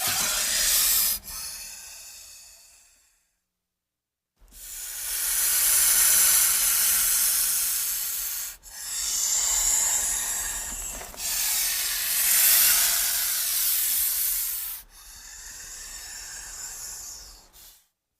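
Film sound effect of asps hissing and slithering: a series of long, loud hissing swells, one after another, with a short silence about three seconds in.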